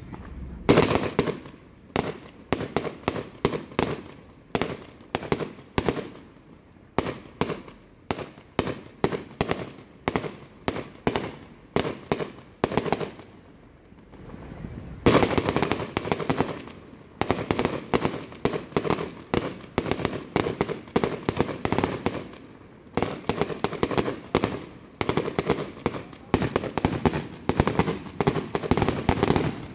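Aerial fireworks display: a rapid, unbroken string of shell bursts bangs out, several a second. There is a short lull about halfway, then thicker barrages in the second half.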